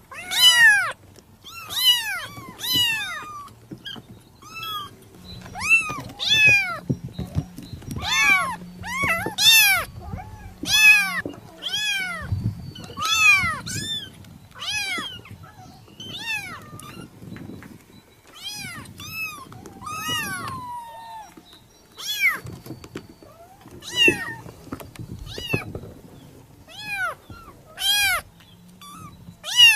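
Kitten meowing over and over in short, high-pitched calls, each rising then falling in pitch, about one or two a second with brief pauses between runs.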